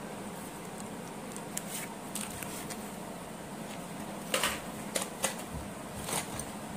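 Cardboard pencil boxes and wooden pencils being handled: scattered light clicks and rustles, busiest between about four and six seconds in, over a steady low hum.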